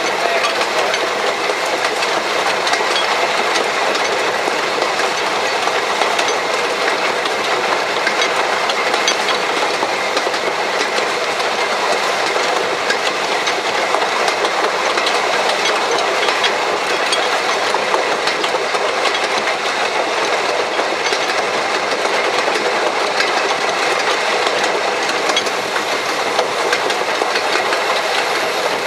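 1883 Hunslet narrow-gauge steam locomotive running along the line, heard from its tender: a loud, steady running noise of wheels on rail, with many small clicks and clatters all through.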